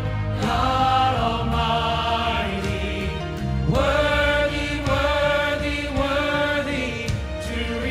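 Church choir singing long held chords of a hymn, with instrumental accompaniment underneath; the harmony moves to a new chord a little under four seconds in.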